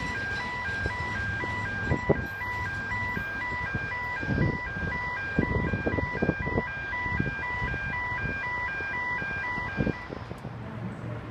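Electronic level crossing warning bells ringing in an even alternating two-tone pattern, over the rumble and irregular wheel knocks of coal hopper wagons passing. The bells stop near the end as the train clears.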